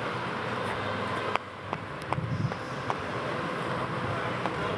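Ice skate blades scraping and gliding over rink ice, a steady gritty rasp with a few sharp clicks of blades striking the ice.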